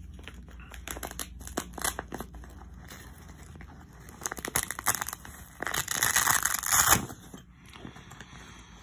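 Hands handling and rummaging through small objects: scattered clicks and rustling, with a louder crinkly rustle from just under six to seven seconds in.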